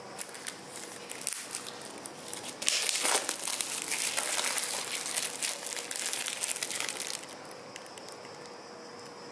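Clear plastic packaging bag crinkling as it is handled around a small cardboard box. It starts with scattered light clicks and becomes a loud, dense crinkling from about three to seven seconds in, then eases off.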